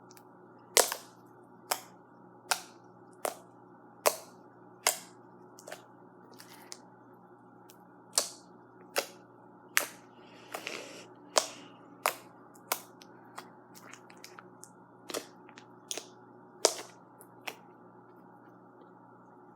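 Slime being squeezed and pressed, giving sharp air-bubble pops about once a second, with a short pause partway through and a softer crackle in the middle. A steady low hum sits underneath.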